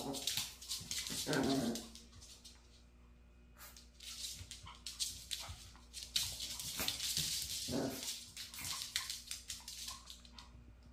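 Two Maltese dogs play-fighting, with short barks right at the start, about a second and a half in, and again near eight seconds. Between them comes a run of quick clicks and scuffles from paws and claws scrabbling on a laminate floor.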